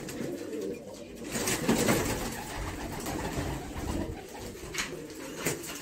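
Domestic pigeons cooing in a loft.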